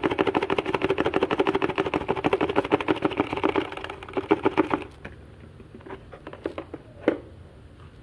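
Rapid rattling from a confetti-filled toy package being shaken fast by hand. It stops about five seconds in, followed by a few light handling clicks.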